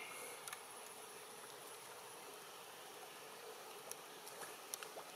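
Faint, steady buzzing of insects, with a few short sharp clicks, two of them close together about four to five seconds in.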